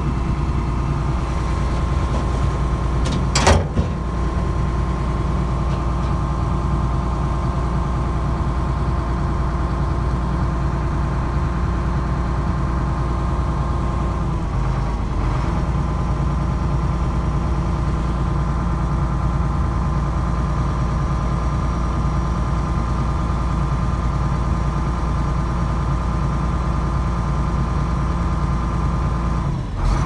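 Excavator's diesel engine running steadily at a constant speed, with a single sharp knock about three and a half seconds in and a brief wavering of the engine note about halfway through.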